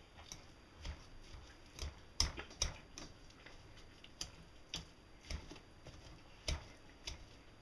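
Hand masher crushing peeled hard-boiled eggs in a glass bowl: faint, irregular clicks and taps as the masher head knocks against the glass, about one or two a second.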